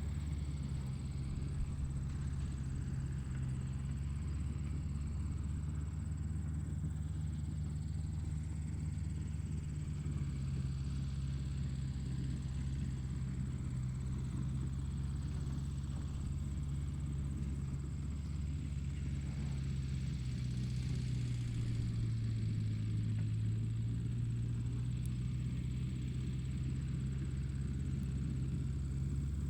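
Tractor engine running steadily with a low, even hum, its pitch dipping slightly for a few seconds past the twenty-second mark.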